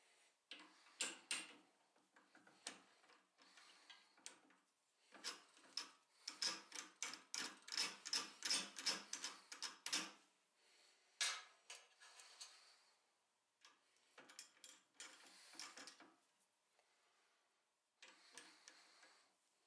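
Hand handling of a small metal jig and wooden dowels on a drill press table: scattered light clicks and knocks, with a quick run of about four clicks a second in the middle. The drill press is not running.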